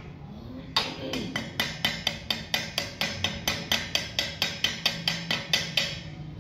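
Rapid, even hammer strikes on steel, about four a second, each with a short metallic ring; they start just under a second in and stop shortly before the end.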